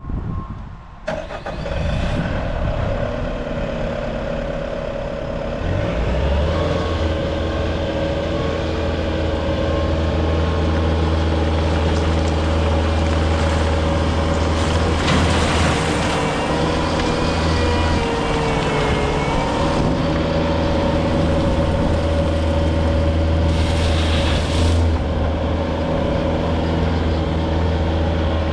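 2020 Bobcat T740 tracked skid steer's Doosan D34NAP four-cylinder turbo diesel starting about a second in, then running steadily. A few seconds later it settles into a stronger, deeper steady drone, with a brief dip in pitch past the middle and a short hiss near the end.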